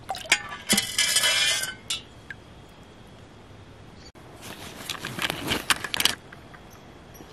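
Stainless steel pot dipped into lake water, the water rushing in with a metallic ring. A few seconds later comes a second burst of quick clinks and rattles.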